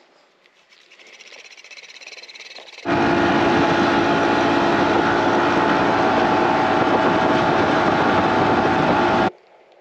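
Bass boat running at speed: the outboard engine's steady drone under heavy wind rush. The sound comes in suddenly about three seconds in and cuts off abruptly near the end.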